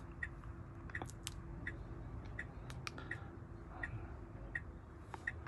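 Soft, even ticking, about one tick every 0.7 seconds, with a few sharper clicks, over a faint steady hum inside a Tesla's cabin while the car parks itself on Autopark.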